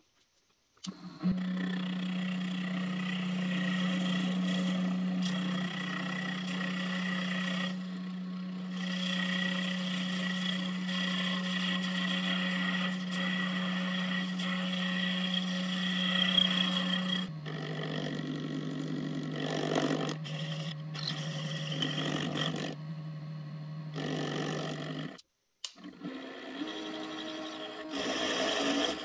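Small Derbyshire Model A lathe running with a steady motor hum while a carbide insert tool cuts a steel bolt, with a scraping hiss of metal being turned. The hum drops to a lower pitch about two-thirds of the way through, and the sound cuts out briefly near the end.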